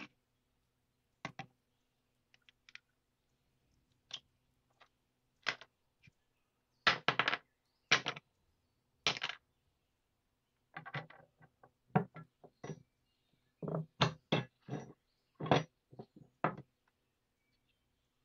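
Hand work with small wooden handle blanks and a steel bayonet hilt on a concrete surface: scattered short knocks, taps and brief scrapes as the pieces are set down, moved and picked up. A faint steady hum lies underneath.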